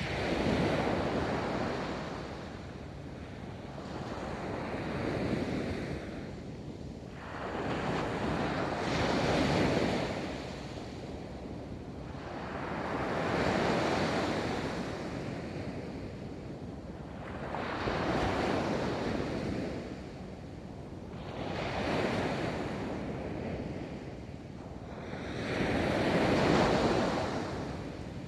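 Ocean waves rolling onto a beach, each one surging in and washing back, about one every four seconds.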